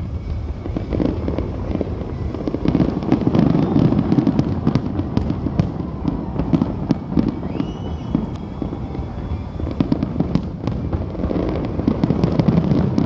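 Aerial fireworks shells bursting overhead in rapid succession: a dense, continuous run of booms and sharp crackles, heaviest about three to four seconds in and again near the end.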